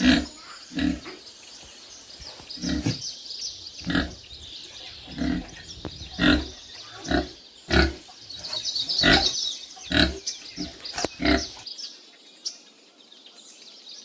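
Pig grunting: about a dozen short, low grunts at uneven intervals, stopping near the end, over a steady high-pitched background noise.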